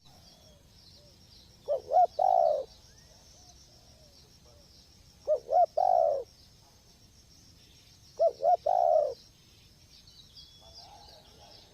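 Spotted dove (tekukur) cooing three times, a few seconds apart, each call two short notes followed by a longer rolling coo.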